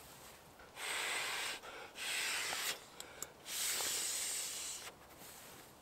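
Three long puffs of breath blown by mouth into the valve of a small inflatable, each a rushing hiss, the last the longest, with a couple of small clicks between the second and third.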